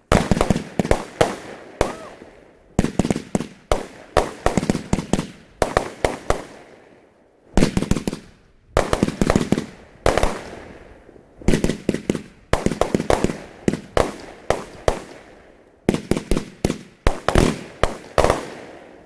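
Fireworks going off in a rapid barrage: a cluster of several sharp bangs about every second, each cluster trailing off with echo.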